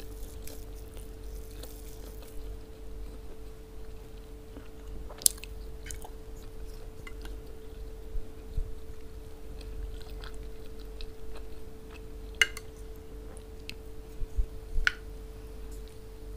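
Close-miked chewing and wet mouth sounds of someone eating stewed lamb with okra and rice, with a few scattered sharp clicks. A faint steady hum runs underneath.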